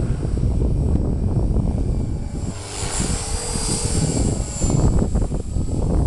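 Electric RC helicopter's high-pitched motor and rotor whine, swelling in the middle and fading again, under heavy wind buffeting on the microphone.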